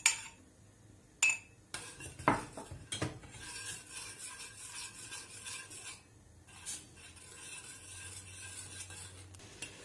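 Metal spoon stirring and scraping a stainless steel pot of thickening flour soup, with a few sharp clinks of spoon or utensil against metal in the first three seconds and once more later.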